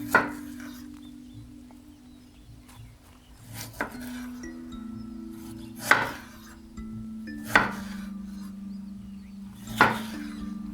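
Background music of slow, held notes, with five sharp knocks about two seconds apart that ring briefly. The knocks are the loudest sounds.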